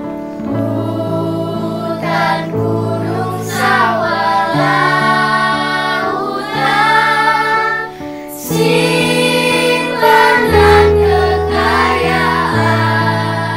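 A children's choir, recorded separately at home and mixed together, sings a song from an Indonesian patriotic-hymn medley over a sustained instrumental accompaniment. The singing dips briefly about eight seconds in, then swells again.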